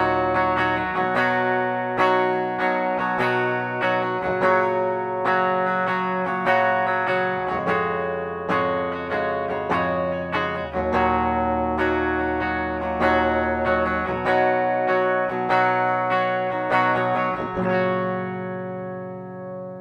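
Gibson SG Standard electric guitar played with a clean tone on its bridge pickup: picked and strummed chords that ring on, the last chord fading away near the end.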